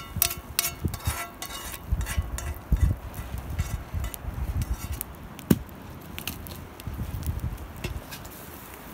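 A metal spoon scraping and knocking against a frying pan: a quick run of clinks and knocks over the first couple of seconds, then scattered single knocks, with one sharper knock about five and a half seconds in.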